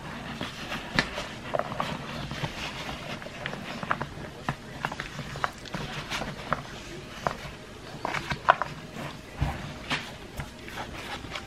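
Dry flour mixture with cherries and white chocolate bits being stirred in a plastic bowl: irregular scraping and light clicks against the bowl, with a few louder knocks.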